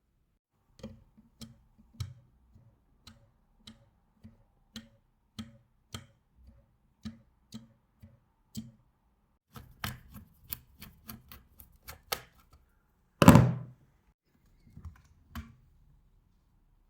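A steady series of light taps, a little under two a second, then a quicker run of taps and one much louder thud about 13 seconds in, followed by two more taps.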